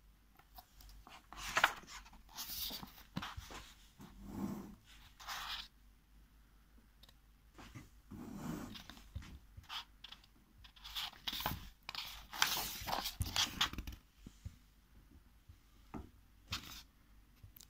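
Pages of a hardcover picture book being opened and turned by hand: irregular paper rustles and scrapes in several bursts, with a few soft handling thumps.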